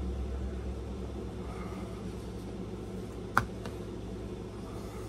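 Steady low hum of indoor room noise, with one sharp click about three and a half seconds in and a fainter one just after.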